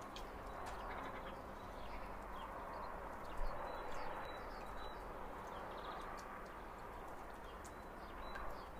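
Faint outdoor ambience: a steady hiss of background noise with occasional short, high bird chirps and a few light clicks.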